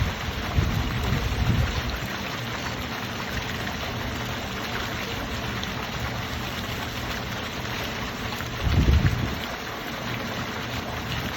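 Fountain water splashing in a steady rush, with low rumbles of wind on the microphone about a second in and again near the end.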